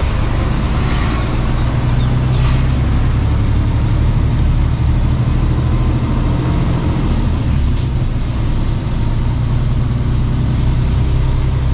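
Mercedes-Benz Actros truck's diesel engine and road noise heard from inside the cab while driving slowly, a loud steady low drone. A few brief hisses come over it, one about a second in, one shortly after and one near the end.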